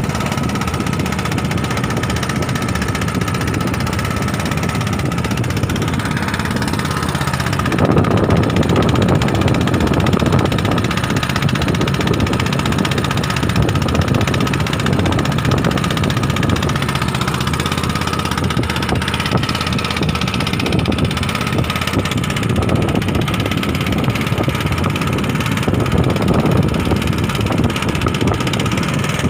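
Boat engine running steadily at idle, a constant low rumble with a thin steady whine above it.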